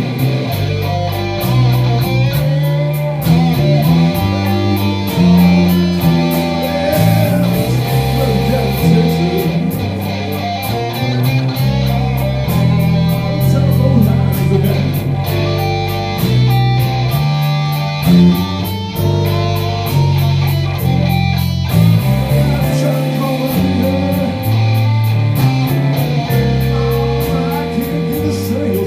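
Live electric blues band playing: electric guitars over bass guitar and drums with cymbals.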